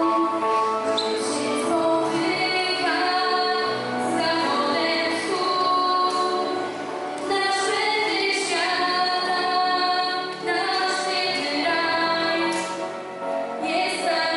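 A girl singing a slow song solo into a handheld microphone, holding long notes, over musical accompaniment.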